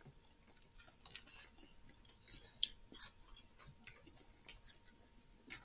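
Faint chewing, with small scattered clicks and crackles of eating at the table.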